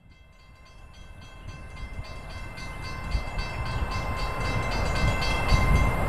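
Approaching train: low rumble and rhythmic clicking of wheels over the rails, growing steadily louder from near silence, the run-up to a Doppler horn pass.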